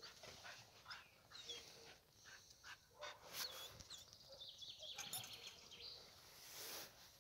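Faint, short high-pitched whines from a dog, heard a few times, with light rustling and scuffing.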